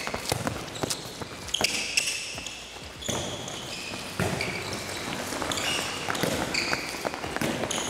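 Handballs being passed, caught and bounced on a sports hall floor, with running footsteps and repeated short squeaks of shoes on the court, echoing in the hall.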